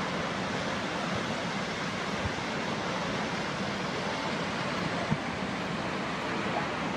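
Steady rushing noise of a waterfall, with a brief tap about five seconds in.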